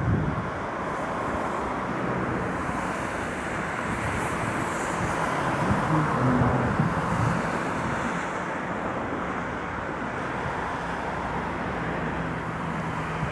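Two coupled class 1440 (Alstom Coradia Continental) electric multiple units approaching: a steady rumble of the running train with a low electric hum.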